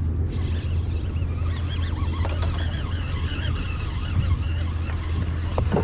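A boat motor running with a steady low hum.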